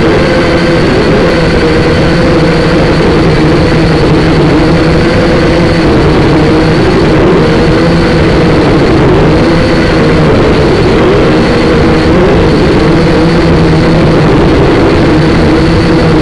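Syma quadcopter's small electric motors and propellers whirring loudly, close to the onboard camera's microphone, with a high whine over the hum. The buzzing pitch wavers up and down as the drone speeds up and slows in flight.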